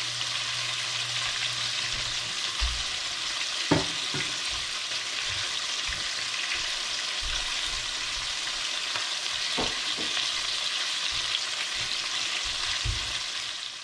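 Flour-coated chicken pieces deep-frying in hot oil in a stainless steel pot, a steady even sizzle, with a sharp pop about four seconds in and a softer one near ten seconds.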